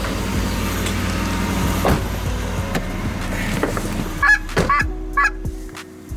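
Steady background noise, then from about four seconds in, a run of about five short goose honks.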